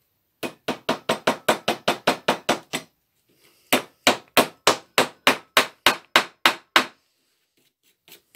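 Hammer driving felt nails through roofing felt into a wooden birdhouse roof: two runs of quick, even taps, the first faster, the second after a pause of about a second.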